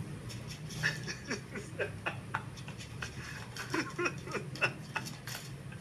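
Audio of a video playing through a smartphone's speaker: a string of short, squeaky vocal sounds with small pitch glides, mixed with light clicks, over a steady low hum.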